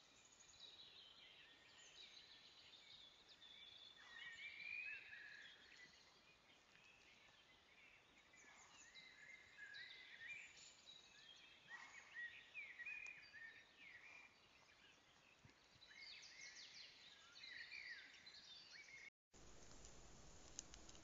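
Faint chirps and short song phrases from several small songbirds, over a low hiss from the trail camera's microphone. The sound cuts out near the end, and a steady hiss follows.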